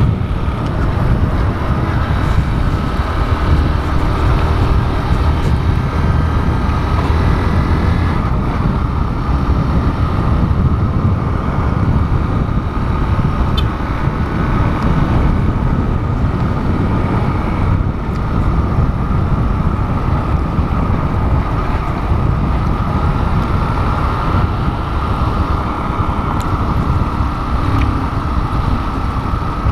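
Honda CG 150 Fan ESDi's single-cylinder four-stroke engine running steadily, with some wind on the microphone; the owner is unsure whether this engine noise is normal.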